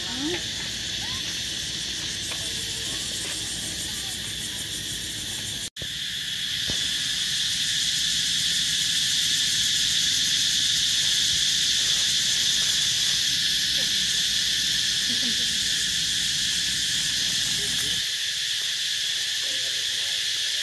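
Loud, steady chorus of insects shrilling, with a brief break about six seconds in.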